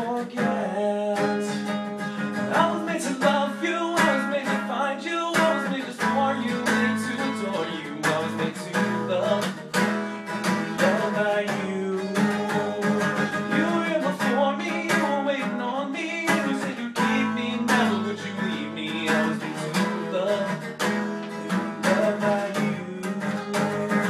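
Rock song played by a band: guitar over a steady drum beat, with no words sung.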